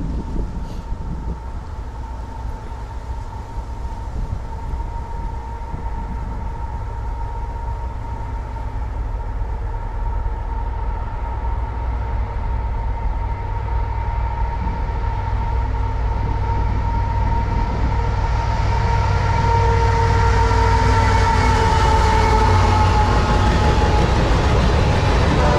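Freight train rolling by, a steady rumble of wheels on rail that grows louder about three-quarters of the way through as the cars draw close. A steady whining tone rides over it and bends slightly lower near the end.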